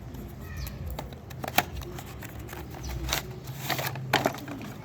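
Packaging and a cable being handled during an unboxing: light rustling with a few sharp clicks and taps.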